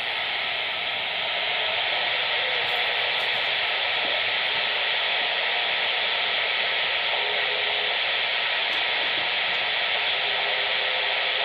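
CB radio static: a steady hiss from the radio's speaker with the squelch open, carrying faint brief whistles.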